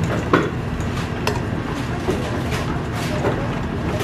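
Wire whisk and metal ladle clinking against a stainless steel mixing bowl while hot milk is whisked into the egg yolk mixture for pastry cream: one sharp clink about a third of a second in, then a few lighter ones, over a steady low background rumble.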